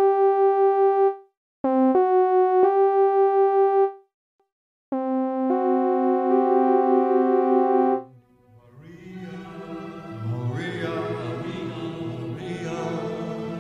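Synthesized keyboard tones play a rising two-note tritone figure twice, the upper note held with a wavering beat, then a held chord that gains a note partway through. About eight seconds in, an orchestral song recording with singing fades in.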